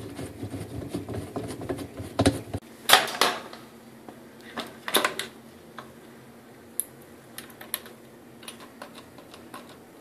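Hard plastic clicks and clatter as a GE Profile dishwasher spray arm is handled and fitted on its wire rack. A few sharp clicks come about three and five seconds in, followed by lighter scattered ticks.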